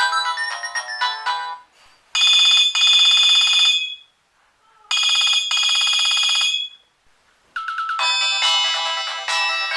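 Nokia 3220 ringtones playing on a Nokia N73 phone. A melodic tone ends about a second and a half in. Then a fast-trilling ring tone sounds twice, about two seconds each with a short pause between. A new melody begins near the end.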